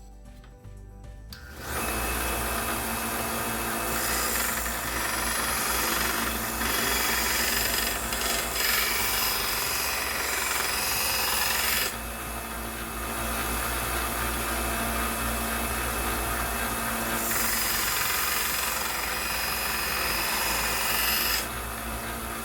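1x30 belt grinder with a 220-grit belt grinding a steel knife blade, a steady rasping hiss over the motor's hum, starting about a second and a half in. The grinding eases off for a few seconds in the middle and stops shortly before the end.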